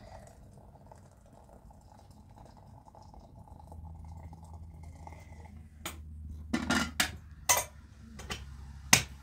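About six sharp metallic knocks and clinks, the loudest near the end, as a blackened metal kettle is set down and settled on the stones of a small wood fire. A low steady rumble runs underneath.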